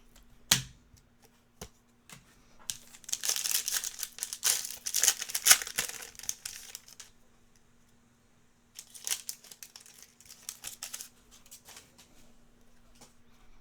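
A foil trading-card pack is torn open and its wrapper crinkled, in two stretches: a long one about three seconds in and a shorter one near the end, with light clicks of cards being handled.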